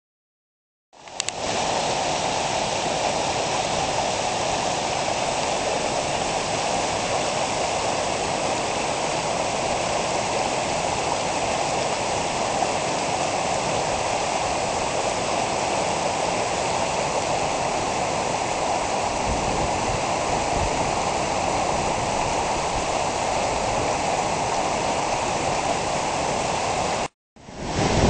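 Steady rush of flowing creek water, starting about a second in and cutting off abruptly near the end.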